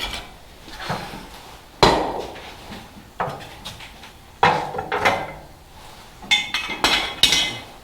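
Metal clanking and clinking: separate sharp knocks a second or so apart, each with a short ring, and a quicker cluster of clinks near the end.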